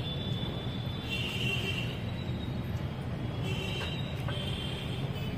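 Steady low rumble of distant traffic, with short high-pitched bird calls about a second in and again near the end.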